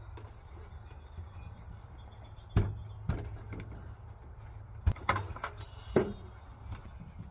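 A ladder being handled and set up, giving about five sharp knocks and clunks in the middle of the stretch, over a steady low outdoor rumble with faint bird chirps.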